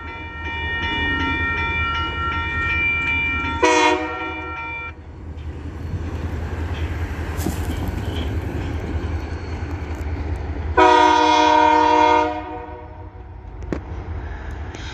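Union Pacific locomotive horn sounding for the crossing: a short blast about four seconds in and a long blast around eleven seconds, over the steady low rumble of the approaching train. A crossing signal bell rings steadily for the first five seconds, then stops.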